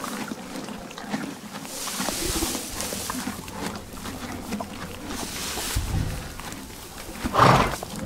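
Horses eating hay: chewing, with hay rustling and crunching as they pull at it. One horse snorts loudly once, briefly, near the end.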